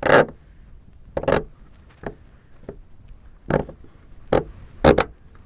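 Handling noises as a tail bolt is pushed through the tail and fuselage of a model airplane: about eight short scrapes and clicks, spaced irregularly.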